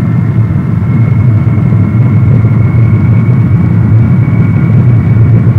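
Lockheed C-5A Galaxy's four General Electric TF39 turbofan engines at takeoff power during the takeoff roll: a loud, steady low rumble with a thin high whine over it.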